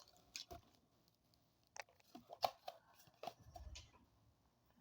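Faint, scattered light clicks and crinkles of trading cards and their packaging being handled, with a soft low thump near the end.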